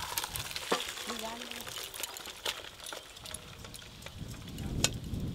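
Hot water and steamed shredded cabbage poured from a metal pot into a woven bamboo basket to drain, the water splashing through onto a metal plate beneath. The splashing is strongest in the first second, followed by scattered light clicks.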